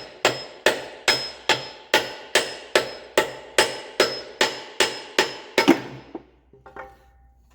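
Hammer blows driving a rust-seized piston, stuck at the rings, out of the cylinder bore of a Kohler K321 engine block: about fourteen steady, evenly spaced metallic strikes, roughly two a second, each with a slight ring. They stop about two seconds before the end, leaving a few faint clinks.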